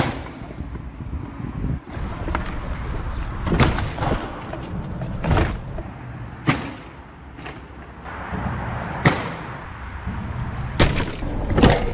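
A loud thud right at the start, then a scattering of sharp knocks and clunks over a steady low rumble: a BMW adventure motorcycle fitted with semi-rigid soft panniers being dropped on its side, and the bike and bags being handled.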